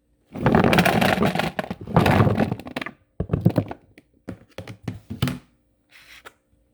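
Small potatoes clattering and tumbling into a container for about two and a half seconds, followed by a few separate knocks as single potatoes drop in or are shifted.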